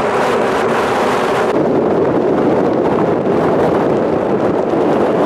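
Loud, steady wind buffeting the microphone, a continuous rushing noise.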